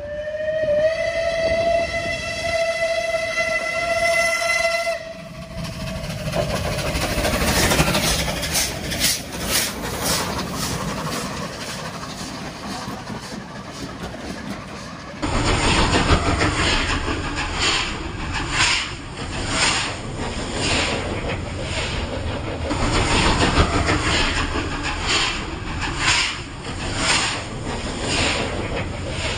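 A steam locomotive's whistle blows for about five seconds. A steam train then runs past close by, its wheels clattering in a steady rhythm, with steam hissing. After a cut about halfway through, a second pass by LNER A4 Pacific 60009 Union of South Africa and its coaches brings the same rhythmic wheel clatter.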